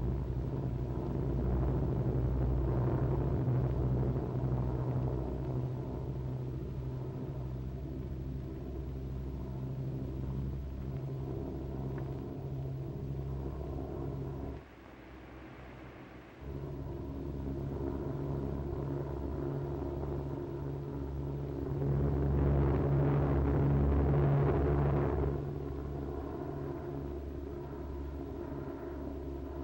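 Propeller aircraft's piston engines droning steadily. The drone drops out for about two seconds halfway through, then comes back and swells louder for a few seconds about three quarters of the way in.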